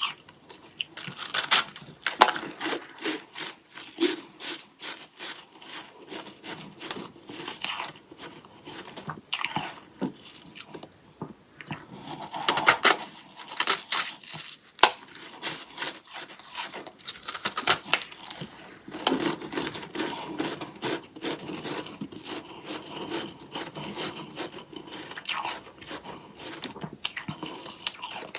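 A chunk of freezer frost being bitten and chewed: many sharp, crisp crunches in quick succession, with a few short pauses between bites.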